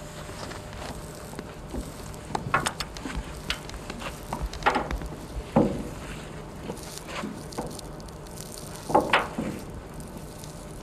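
Scattered knocks, scrapes and creaks of a man climbing down a ship's rope ladder with wooden rungs, with a few louder knocks, over a faint steady low hum.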